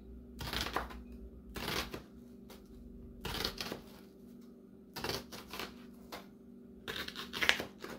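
Kitchen knife slicing through a red onion onto a bamboo cutting board: five or so short bursts of cutting, one every second or so. The knife is a little dull.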